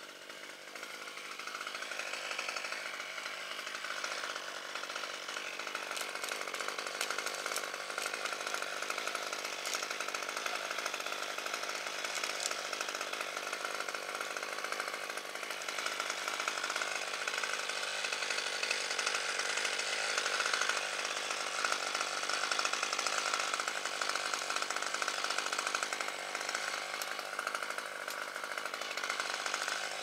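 A chainsaw running steadily, with a continuous engine drone that grows louder about a second in.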